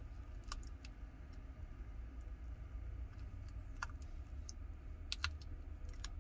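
Scattered small, sharp clicks and taps as fingers press the flex and battery connectors down onto a Samsung Galaxy S23 Ultra's mainboard and handle the phone's frame, over a low steady hum.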